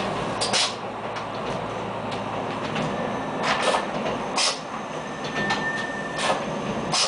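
Running noise inside the 630M diesel railbus under way: a steady rumble with sharp clicks and knocks every second or so. The low engine hum weakens about half a second in, and a thin high whine joins from about five seconds in.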